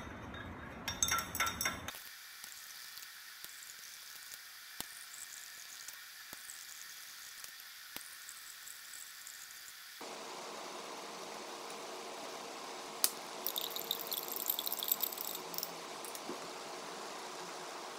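Glass stirring rod clinking rapidly against a glass beaker while zinc oxide is stirred into warm hydrochloric acid. This gives way to quiet room noise with a few faint ticks, then a sharp knock about thirteen seconds in and a cluster of light glass clinks as the beaker is handled.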